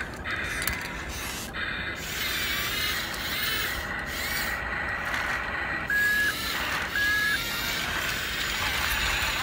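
Small electric motors and plastic gears of a radio-controlled toy excavator and toy dump truck whirring as the excavator arm moves and the truck drives, with two short, even beeps about six and seven seconds in.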